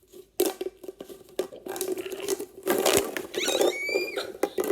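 Plastic pop tubes being stretched and squashed, their ribbed sections popping with a run of quick clicks and crackles, and a short rising squeak about three and a half seconds in.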